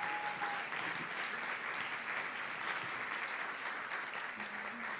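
Audience applauding steadily in an auditorium, a dense patter of many hands clapping that starts to thin out near the end.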